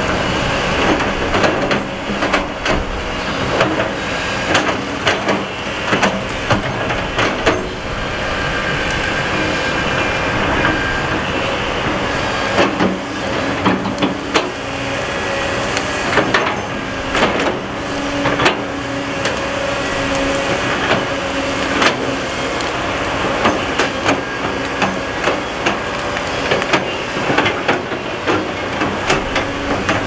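Heavy tracked earthmoving machinery working: diesel engines running steadily, with frequent sharp metallic clanks and knocks scattered throughout.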